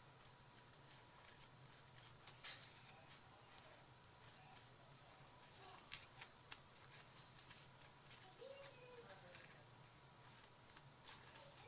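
Faint, scattered clicks, snips and rustles of craft paper being worked by hand into a paper flower.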